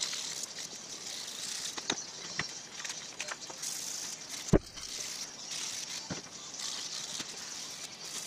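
Hand sanding of a small metal bracket plate with sandpaper: a scratchy hiss that comes and goes with each stroke, with a few light knocks of the part against the wooden bench, the loudest about four and a half seconds in.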